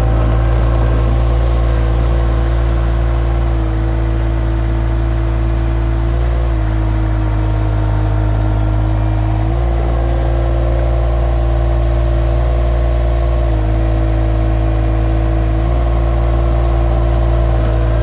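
Mini skid steer's engine running steadily, its pitch stepping down and back up slightly several times as the machine works.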